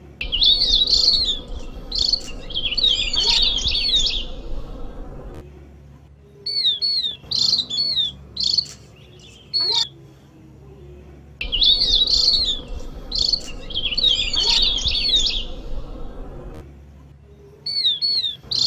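Javan grey-throated white-eye (opior jawa) singing: dense passages of quick, high twittering notes, with short separate chirps between them. The same song sequence comes round again about eleven seconds later, as a looped recording.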